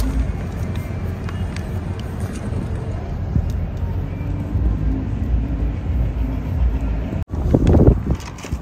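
Wind buffeting the microphone outdoors: a steady, heavy low rumble. It cuts out abruptly near the end, and a short louder burst follows.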